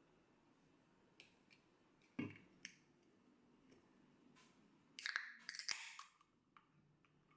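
A beer can and tableware handled on a table. A few light clicks, then a solid knock about two seconds in, then a loud cluster of sharp clicks and hissy noise from about five to six seconds in.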